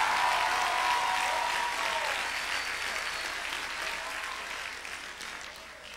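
Congregation applauding, the applause gradually dying away.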